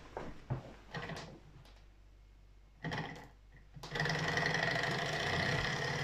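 Small twin-cylinder Stirling hot-air engine, heated by oil-fuelled wick burners, starting up after a few light knocks: about four seconds in it catches and runs with a fast, steady mechanical clatter.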